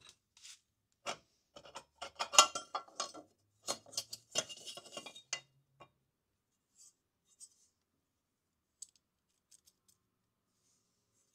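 Metal clinks and scrapes of workshop tools and parts being handled: a busy run for the first five seconds or so, then a few scattered ticks.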